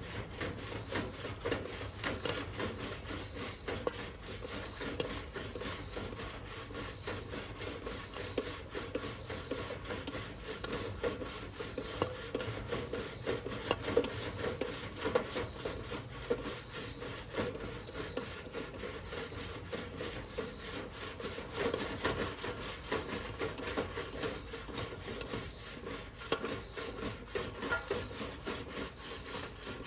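Popcorn kernels popping in a Coleman long-handled campfire popcorn popper, with scattered sharp pops. The popper is shaken back and forth over the fire in a steady rhythm, giving a repeated scraping rattle about every 0.7 seconds.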